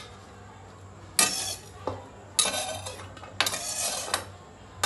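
Metal kitchen utensils scraping and clattering against a stone countertop as chopped capsicum is gathered up: three sharp scrapes about a second apart, with a click between the first two.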